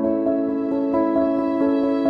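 Background music: soft, slow keyboard or piano notes held and changing about every half second.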